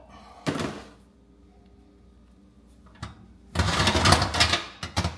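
Wire oven rack sliding along its metal rails and rattling, starting about three and a half seconds in. A single metal clank comes about half a second in.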